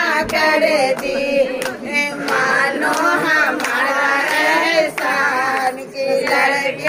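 Several women's voices singing together in a loose, informal chorus, amid crowd noise.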